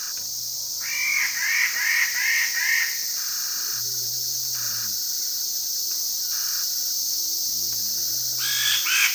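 Standardwing bird-of-paradise calling: a quick series of about six loud repeated notes, then another series near the end. A steady high drone of insects runs underneath.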